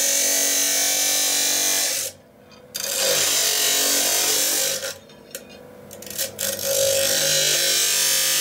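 Abrasive cut-off wheel grinding through a forged steel knife blank, a steady high hiss. Twice the cutting stops, briefly about two seconds in and for over a second around five seconds in, then it bites again.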